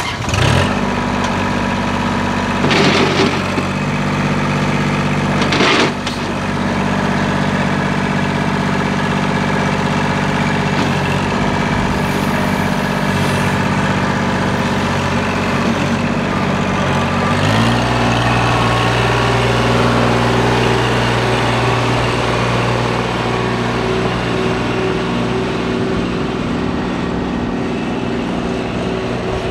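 Kubota L2501 compact tractor's three-cylinder diesel engine running steadily as the tractor drives. Two brief louder surges come a few seconds in, and the engine note shifts to a new steady pitch about two-thirds of the way through.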